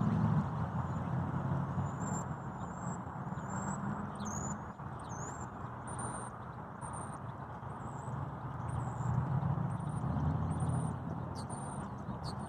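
A songbird singing a run of about a dozen short, high, thin whistled notes, some sliding up or down, over a steady low rumble.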